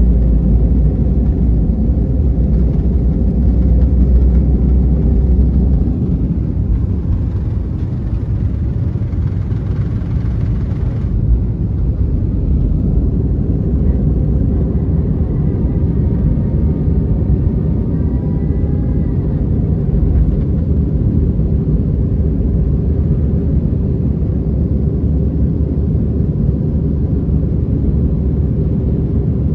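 Inside the cabin of an Airbus A320 taking off: the engines run at takeoff power over a heavy runway rumble, which drops away about six seconds in as the aircraft leaves the ground. It then settles into a steady engine and airflow drone in the climb, with a faint whine in the middle.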